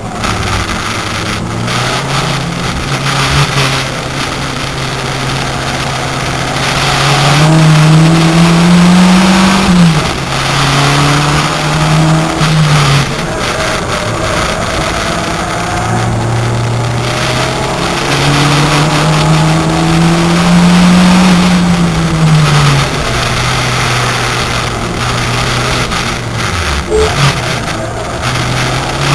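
VW Corrado's turbocharged 1.8-litre four-cylinder engine at racing pace, heard from inside the cabin: its pitch climbs steadily under acceleration and then drops back sharply, twice most clearly, over heavy road and wind noise.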